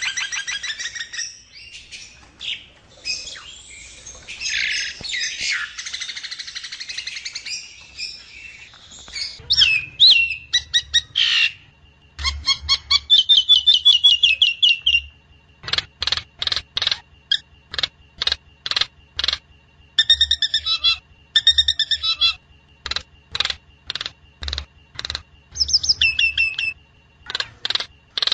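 Jalak nias myna calling: dense, harsh chattering squawks for the first several seconds, then a long series of short, sharp calls and slurred whistled notes repeated at irregular intervals, used as a lure song to get captive birds to sing.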